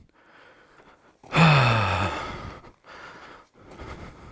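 A man's long, breathy sigh that falls in pitch, about a second in. It is followed by faint crunching footsteps on gravel.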